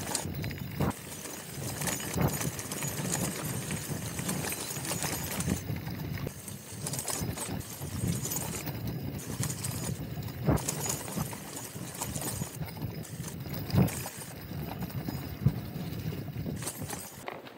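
Mountain bike riding over a rough dirt trail: a steady rattle and clatter of tyres and bike, with irregular sharp knocks as it hits bumps.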